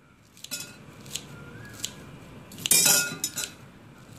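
Kitchen scissors snipping mint leaves in a stainless steel colander: a handful of sharp, irregular snips and metal clicks, loudest in a quick cluster a little under three seconds in.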